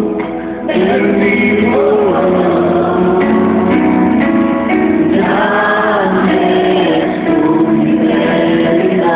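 Live music with singing: voices, choir-like and both male and female, holding long notes over instrumental accompaniment.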